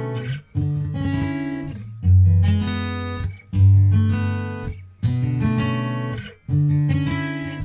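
Background music: acoustic guitar strumming chords, each chord ringing out and fading before the next strum, about every one and a half seconds.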